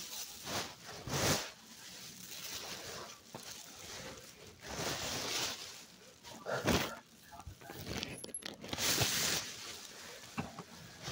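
Rustling and handling noise as a phone moves against bedding fabric, in irregular bursts with a few soft knocks.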